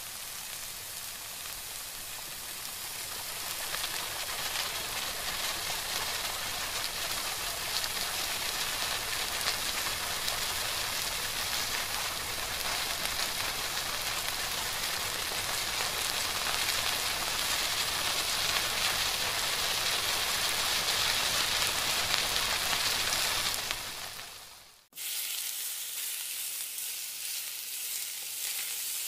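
Date paste sizzling in ghee in a non-stick karahi as it is stirred with a spatula, its water cooking off. The sizzle grows louder a few seconds in. About four seconds before the end it cuts out for an instant and comes back quieter.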